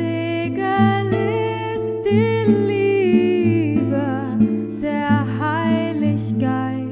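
A woman singing a slow hymn melody in held notes with vibrato, accompanied by a plucked classical guitar.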